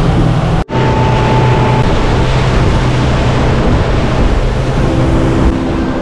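Honda 135 four-stroke outboard motor running at speed, with the boat pushing through the water. The sound cuts out for an instant less than a second in, then carries on steadily.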